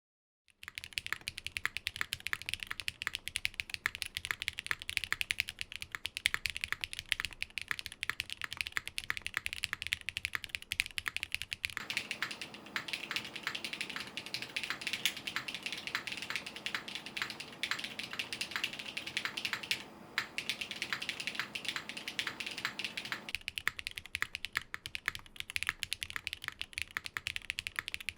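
Fast, continuous typing on a Geonworks F1-722 mechanical keyboard with an aluminium half plate, lubed Geon Black switches and GMK Amethyst keycaps. A dense run of keystroke clicks starts about half a second in.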